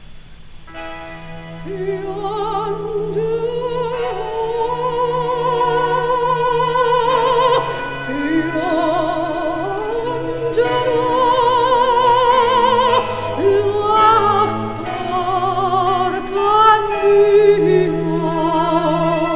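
Operatic soprano singing a slow aria with wide vibrato, long held and swelling notes, over orchestral accompaniment, in an old radio concert recording.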